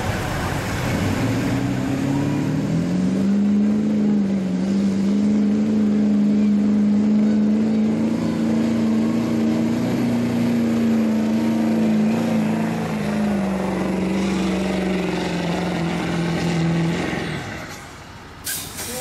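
Ford Super Duty pickup's diesel engine under full load pulling a weight-transfer sled. It climbs in pitch over the first few seconds, holds a steady high drone for about fifteen seconds, then falls away and stops near the end as the pull ends. A short sharp hiss comes just before the end.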